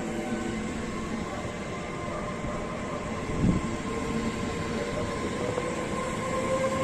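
ETR 104 "Pop" electric multiple unit moving along the platform: steady running noise with a faint whine, slightly rising in pitch near the end. A single short thump about three and a half seconds in.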